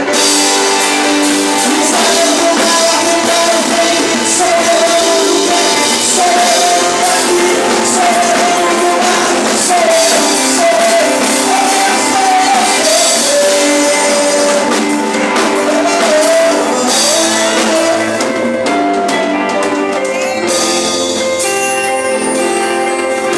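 Live worship band playing in a large hall, a singer's melody carried over guitar, keyboard chords and drums.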